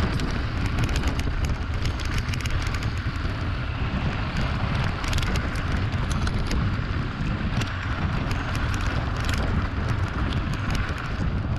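Mountain bike riding over rough, rocky ground: tyres crunching on stones and the bike rattling with frequent sharp clicks, under a steady rumble of wind on the microphone.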